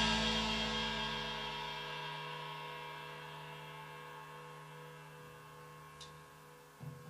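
The last chord of a punk rock band rings out and slowly fades away, leaving a few steady tones that die down. There is a faint click about six seconds in and a short low thump near the end.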